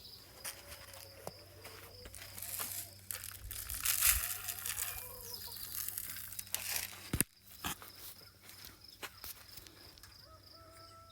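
Chickens clucking. A louder stretch of rustling runs through the middle, and there is a sharp knock about seven seconds in.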